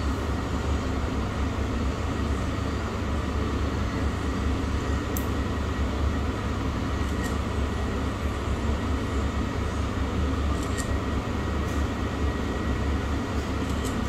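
Steady low rumbling background noise with a few faint clicks.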